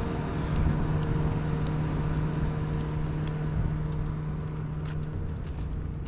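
An engine running steadily, a low even hum with overtones, fading somewhat about five seconds in, over low outdoor rumble.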